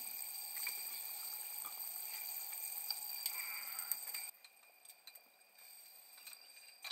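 Faint background hiss with a thin steady high whine and a few light clicks, falling to near silence about four seconds in.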